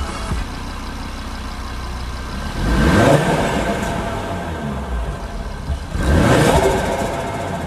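Audi RS3's turbocharged 2.5-litre five-cylinder engine, breathing through a newly fitted Eventuri carbon intake, running at idle and revved twice: about three seconds in and again about six seconds in, rising and falling in pitch each time.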